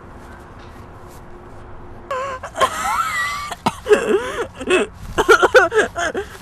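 A young woman wailing and sobbing loudly, her cries sliding up and down in pitch. It starts about two seconds in, after a low steady background hiss.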